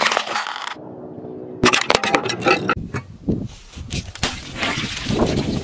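A car tyre rolling over objects on the road and crushing them. About a second and a half in a dense run of crunches and crackles starts suddenly, followed by heavier, irregular crushing noise.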